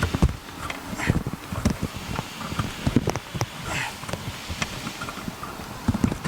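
Irregular knocks, thumps and clicks of hands handling parts and wiring on a lawn mower, over wind noise on the microphone.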